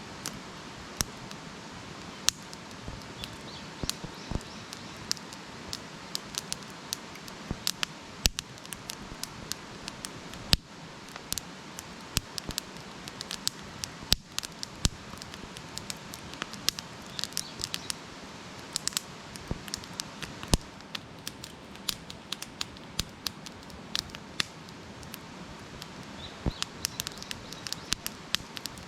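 Wood campfire burning: a steady low hiss with frequent, irregular sharp crackles and pops, some much louder than the rest.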